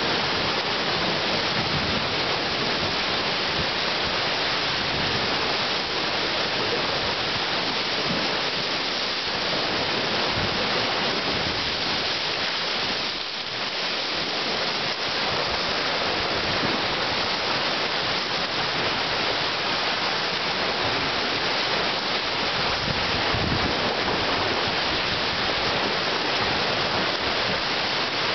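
Steady rushing noise of rough lake water splashing against a stone promenade wall, mixed with rain, briefly dipping about halfway through.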